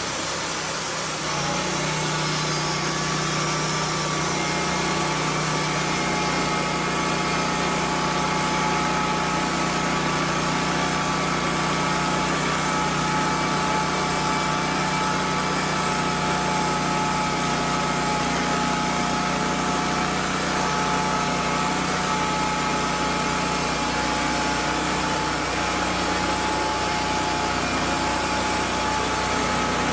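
Portable band sawmill's engine running at a steady high speed while the band blade cuts along an oak log.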